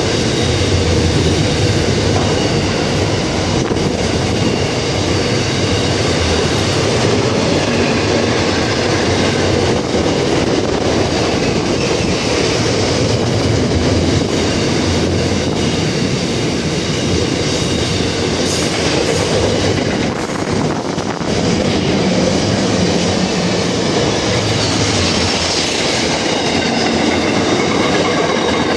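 Container wagons of an intermodal freight train rolling past at speed, with the steady, continuous noise of steel wheels running on the rails.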